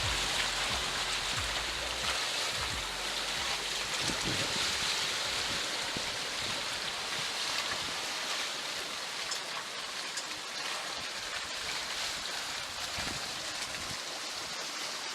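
Steady rushing hiss of water, as of water streaming past a sailing boat's hull, with low wind buffeting on the microphone in the first few seconds.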